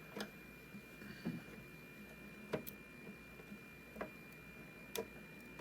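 Faint, scattered clicks and light taps, about six of them, from small plastic scale-model parts being handled.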